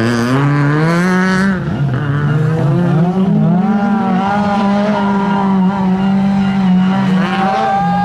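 Fiat Punto Super 1600 rally car's four-cylinder engine revving hard out of a hairpin, the pitch climbing, dropping sharply at a gear change, then held high, with another rally car's engine running alongside.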